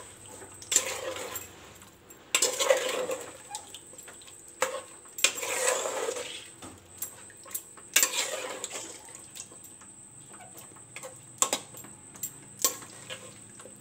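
A metal spoon scraping and clinking against a metal pot as raw chicken pieces are stirred through a thick yogurt-masala paste, in separate strokes every second or two.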